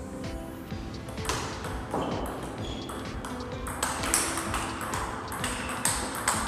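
A table tennis rally: the celluloid ball clicks sharply off the rubber-faced paddles and bounces on the table, a string of quick hits at irregular spacing. Background music with held notes plays under it.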